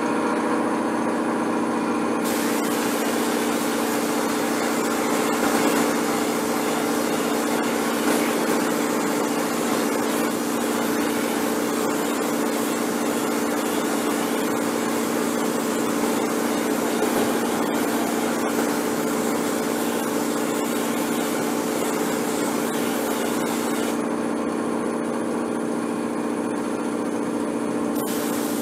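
A motor running steadily with a constant hum. A higher hiss joins about two seconds in and drops away a few seconds before the end.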